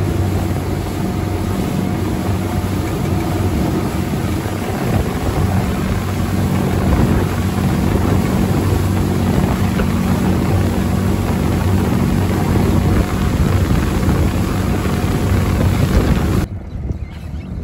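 Boat's Isuzu 100 hp diesel engine running steadily under way at speed, a low, even engine drone over the rushing wake and wind on the microphone. It stops abruptly near the end, leaving a much quieter background.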